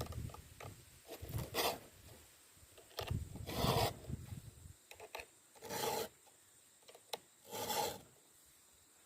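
A file rasping across the cutter teeth of a full 3/8-inch chainsaw chain as the chain is hand-sharpened: four strokes about two seconds apart, with light clicks between them.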